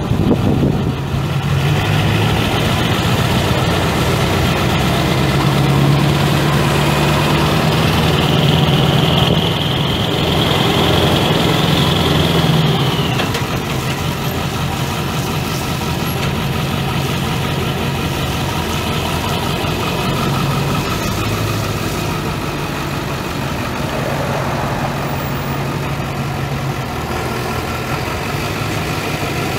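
2003 Ford F350's 7.3L turbo diesel V8 idling steadily. A high whine runs over the engine note for the first dozen seconds and falls away about thirteen seconds in, and the running settles a little quieter.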